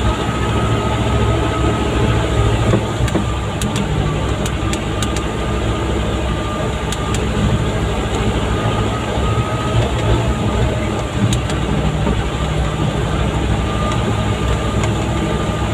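Mitsubishi dump truck's diesel engine running steadily, heard from inside the cab as it crawls over a muddy, potholed track. A few sharp clicks and knocks come from the cab, a handful of times.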